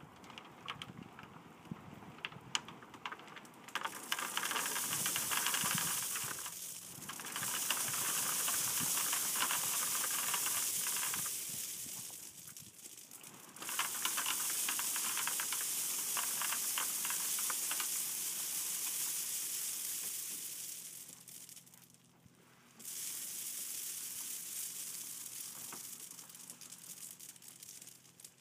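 About a quarter yard of 3/4-inch clear crushed stone pouring off the back of a pickup bed as a Loadhandler drag sheet carries it out: a steady rattling hiss of stones falling onto a pile. It comes in four long runs, starting a few seconds in after some quieter clicks and dropping away briefly three times.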